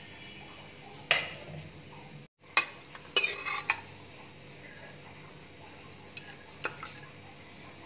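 Steel ladle stirring cooked mutton curry in a pressure cooker and knocking against the metal pot. There is a sharp clink about a second in, a quick run of clanks around three seconds in, and a few lighter clinks near the end.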